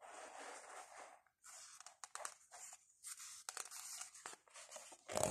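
Faint rustling and crinkling of a picture book's paper pages being handled, with scattered small clicks and a louder paper flick near the end as the page is turned.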